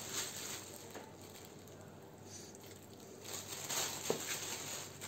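Plastic bag crinkling and a metal spoon scraping thick tomato paste out of it, in soft, irregular rustles, with one sharp tap about four seconds in.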